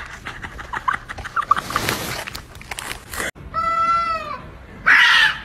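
Two cats in a standoff: one drawn-out, slightly wavering yowl lasting about a second, then a loud harsh hissing cry near the end. Faint scattered clicks come before them.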